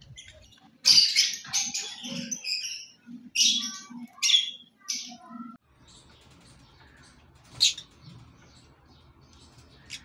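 Lovebirds chirping and squawking, a quick run of loud, high-pitched calls for about five seconds. Then comes a quieter stretch with just two single chirps, one near the middle and one at the end.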